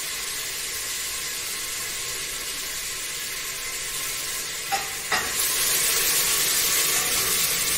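Food frying in a pan on a gas stove: a steady sizzling hiss that grows louder about five seconds in, with a couple of brief clicks just before.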